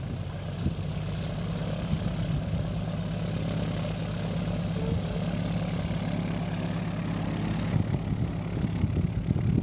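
Tow plane's piston engine and propeller running steadily on the ground, a low drone holding an even pitch.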